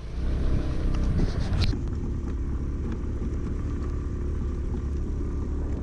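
Aprilia Storm scooter's engine running steadily under the rider on a rough, wet dirt road, with a couple of sharp knocks about a second and a half in.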